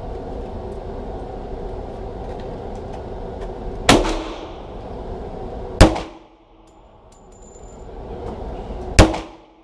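Three pistol shots fired indoors, loud sharp cracks with an echoing tail, the first about four seconds in, then about two seconds apart and three seconds apart.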